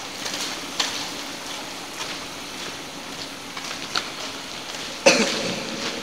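Footsteps scuffing on the gritty, wet concrete floor of a long road tunnel, as faint irregular clicks about a second apart over a steady hiss. About five seconds in comes one sudden loud knock that rings on in the tunnel.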